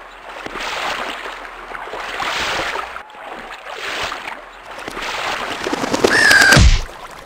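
Sound design for an intro animation: rushing water washing in slow swells, a few seconds apart. About six seconds in, a bird gives one shrill cry over a loud deep whoosh that slides down in pitch, then cuts off suddenly.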